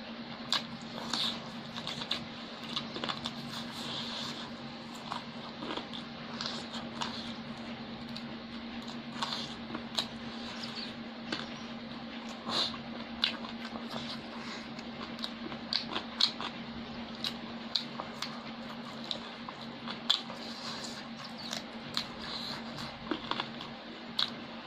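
Close-up eating sounds of a person chewing fried chicken and rice eaten by hand: wet chewing and lip smacks with many irregular sharp clicks, over a steady low hum.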